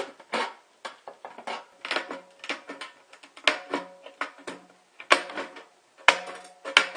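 A steel food can being knocked and worked with a metal tool: irregular clanks about twice a second, the louder ones leaving the can ringing briefly. The edge of a hole cut in the can is being smoothed out so a second can will fit in it.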